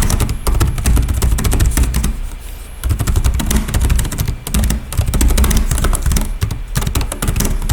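Fast typing on the Jooyon CarryBook T Pro laptop's built-in keyboard: a dense stream of key clicks, easing off briefly a little over two seconds in.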